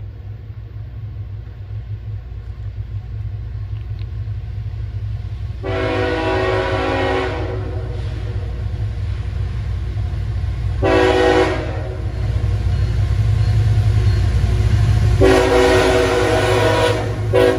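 A CSX freight locomotive's multi-chime air horn sounds the grade-crossing signal as the train approaches: a long blast about six seconds in, a short one around eleven seconds, and another long one about fifteen seconds in. Under the horn, the low rumble of the locomotive's diesel engine grows steadily louder as it draws near.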